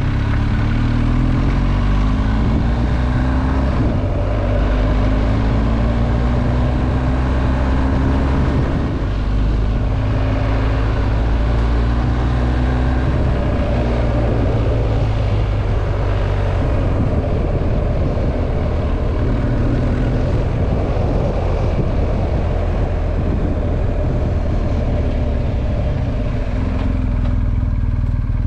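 Motorcycle engine running under way, with steady wind rush. The engine note rises and drops several times in the first half, as with throttle and gear changes.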